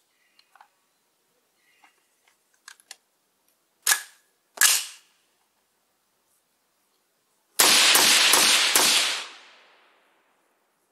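Suppressed shots from a short-barrelled AR-style carbine: a few faint clicks, then two single shots less than a second apart, then a quick run of several more shots close together, with a ringing tail that dies away.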